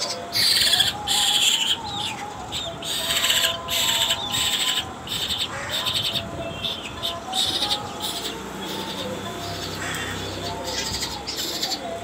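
A young black-feathered bird giving repeated raspy begging calls, one after another, while being hand-fed with a syringe.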